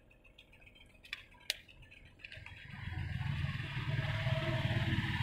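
A few faint clicks of a plastic opening tool against a phone frame, then about two and a half seconds in a hot air gun switches on and runs with a steady blowing hiss and low hum, used to soften the adhesive holding the phone's display.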